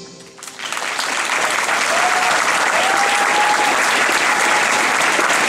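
Audience applauding, breaking out about half a second in as the song's final note fades away, then keeping up steadily.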